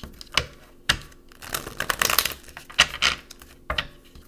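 Tarot cards handled over a wooden table: several sharp taps as cards are knocked and laid down, with a papery shuffling rustle about two seconds in.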